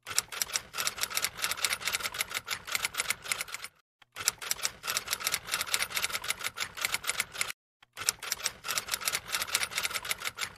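Typewriter-style typing sound effect: rapid, crisp key clicks in three runs, with brief gaps about four seconds in and again about seven and a half seconds in.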